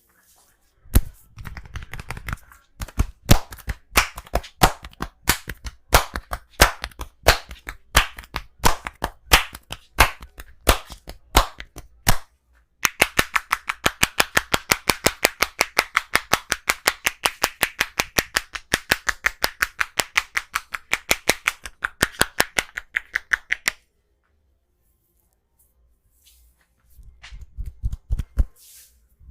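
Hands slapping and clapping on the body in a percussive massage. First come uneven strokes about three a second, then a fast, even rattle of about six strikes a second for some ten seconds that stops suddenly.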